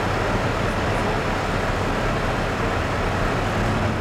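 Dodge Ram pickup's Cummins diesel idling steadily while hitched to the pulling sled, a constant low hum with no revving.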